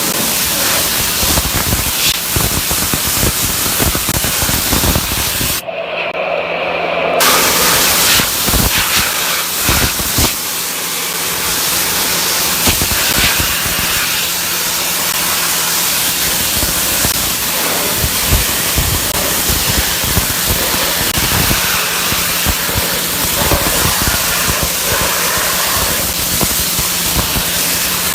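Dry ice blaster nozzle blasting charred wood: a loud, continuous hiss of compressed air and dry ice pellets, with sharp crackling impacts and a steady low hum underneath. The blast stops for about a second and a half about six seconds in, then starts again.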